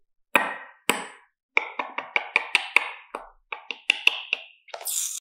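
Music intro starting with sharp wood-block-like percussive hits: two spaced strikes, then a quickening run of about five a second, with a rising swoosh near the end leading into the beat.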